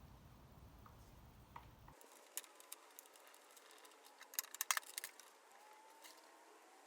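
Faint, scattered clicks and light clatter of small parts and tools being handled, a cluster of sharper clicks coming a little after the middle.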